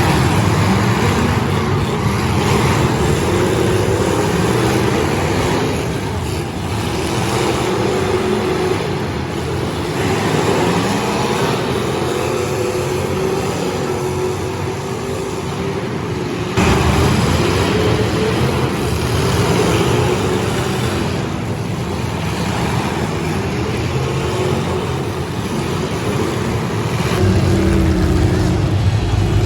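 Demolition derby car engines running and revving, loud and continuous, with a sudden shift in the sound about halfway through.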